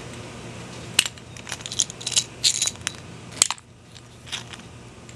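Metal deadbolt lock parts clicking and clinking as they are handled and fitted: a sharp click about a second in, a cluster of light clinks, and another sharp click about three and a half seconds in.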